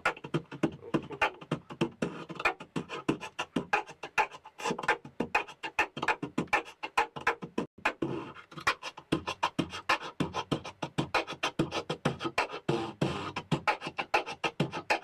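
A person beatboxing: a fast, continuous run of percussive mouth sounds, about five a second.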